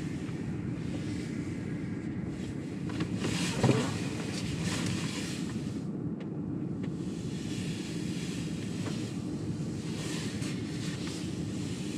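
Low, steady road and tyre noise inside the cabin of a Tesla Model X, an electric car with no engine sound, rolling slowly, with a brief swell about three and a half seconds in.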